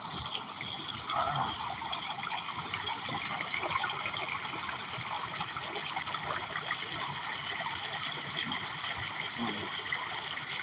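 Shallow stream water spilling and trickling over the rocks of a small hand-built stone dam, a steady splashing.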